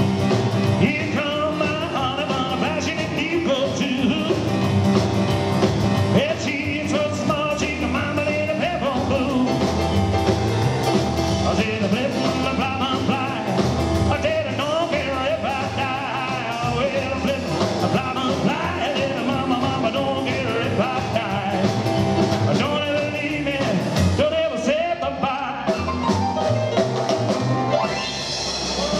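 Live 1950s-style rock 'n' roll trio playing: boogie piano on a Yamaha stage keyboard, drum kit and slapped upright double bass, with a steady driving beat.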